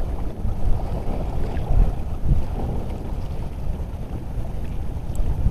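Wind buffeting the microphone over open, choppy sea water: a low, gusting rumble with splashing wavelets.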